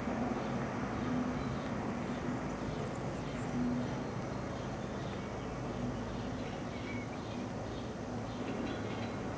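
FS D.245 diesel shunting locomotive running with a steady low engine drone as it slowly moves a train of empty coaches.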